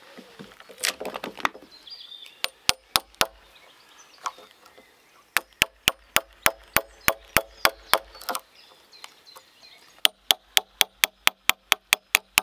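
Hammer striking a wood chisel to cut a notch into the end of a log beam: sharp knocks in quick runs of about four to five strikes a second, a short run of four, then two long runs of a dozen or so.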